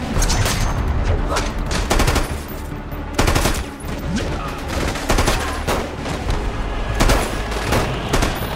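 Film battle soundtrack: repeated gunshots and bursts of automatic gunfire with hard hits, over a continuous low rumble of music.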